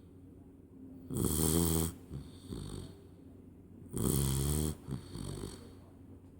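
Labrador puppy snoring like a human in its sleep: two loud snores about three seconds apart, each lasting under a second, with softer breaths between.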